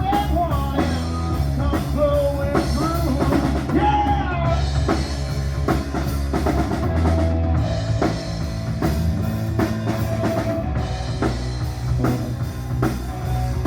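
Rock band playing: drum kit keeping a steady beat over bass and guitar, with a wavering melody line on top in the first few seconds.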